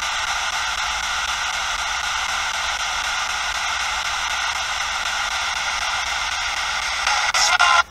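P-SB7 spirit box scanning radio giving out steady white-noise static as it sweeps, with a louder surge of static near the end that cuts off abruptly.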